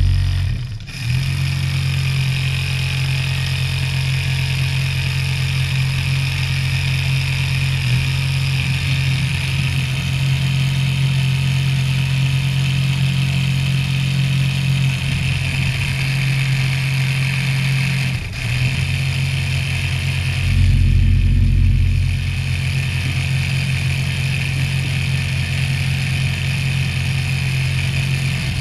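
Homemade RC model tractor's rotavator spinning at speed, its small electric motor and gear drive giving a steady hum with a high whine on top. The sound dips briefly twice and grows louder for a second or two about two-thirds of the way through.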